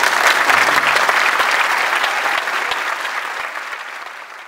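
Theatre audience applauding at the end of a song, a dense patter of many hands that fades away near the end.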